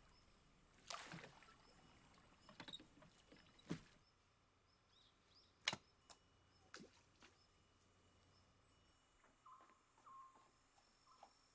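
Near silence broken by a few splashes of wooden oars dipping into still water as a rowboat is rowed, then a handful of sharp clicks, the loudest about halfway through. Near the end come short, repeated animal calls, several in a row.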